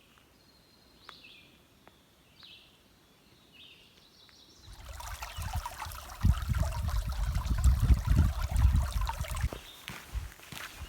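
Songbirds chirping in short calls over a quiet background, then about halfway a loud rushing noise with a heavy low rumble starts suddenly and eases off near the end.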